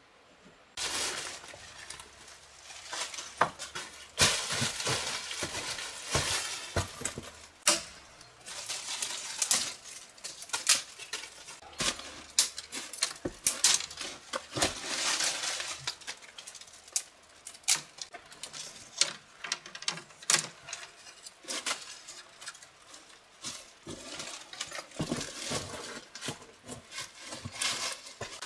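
Branches rustling and snapping, with crunching dry leaves and footsteps on rock: many irregular sharp cracks over a rough, rustling hiss.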